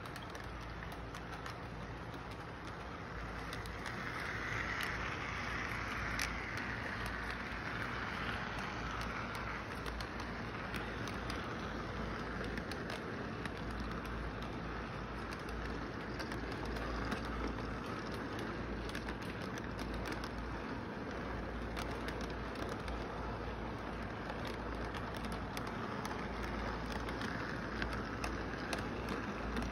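Model train rolling along its track: a steady rolling rumble with scattered clicks from the wheels, getting louder about four seconds in as the cars pass close by.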